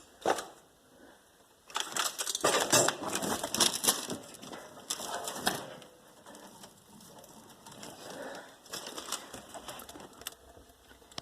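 Handling noise: objects being moved, rattling and scraping for a few seconds about two seconds in, then fainter scattered clicks and rustling.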